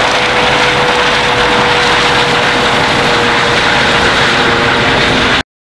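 Rescue helicopter climbing away overhead: steady rotor and turbine noise with a constant whine, cutting off suddenly near the end.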